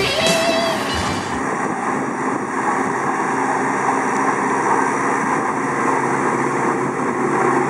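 Reform Muli T7 transporter running steadily as it drives through cut hay with its loader wagon, giving a steady, even machine noise.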